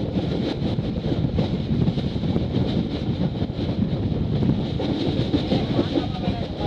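Passenger train coach running at speed, heard from an open window: a steady rumble and rattle of wheels on the rails.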